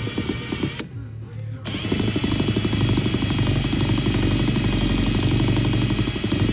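Paper towel with alcohol rubbed quickly back and forth over a painted steel impact socket, a fast scratchy scrubbing that wipes the excess paint off the stamped size markings. It pauses briefly about a second in, then goes on steadily.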